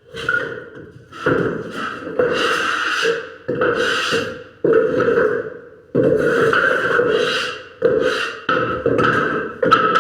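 Hand tool rasping along wood in repeated strokes, about one a second, each starting sharply and fading.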